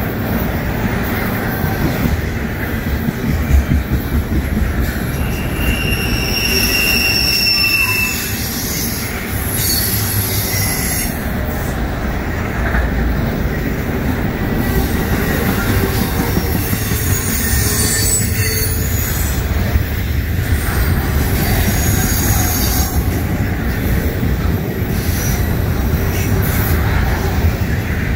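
Double-stack intermodal freight train rolling past: a steady rumble of steel wheels on the rails, with brief high-pitched wheel squeals coming and going several times.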